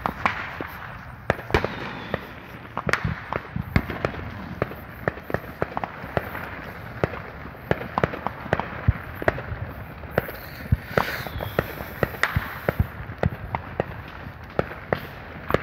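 Fireworks going off in a steady, irregular stream of sharp pops and bangs, a few each second, some much louder than others.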